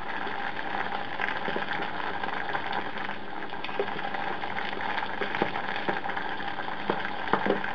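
Carrot slices boiling in water in a stainless steel pot, a steady bubbling. A few light knocks come in the second half as a wooden spoon stirs the pot.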